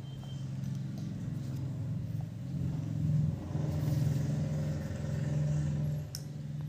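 A low engine hum from a running vehicle, growing louder midway and falling off about six seconds in, with a light click near the end.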